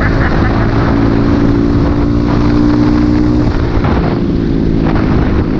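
Motorcycle engine running steadily while riding, easing off about three and a half seconds in.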